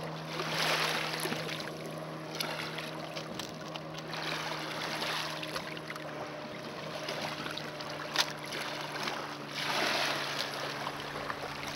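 Gentle river water lapping at a stony bank, with wind on the microphone swelling briefly near the start and again near the end, over a low steady hum.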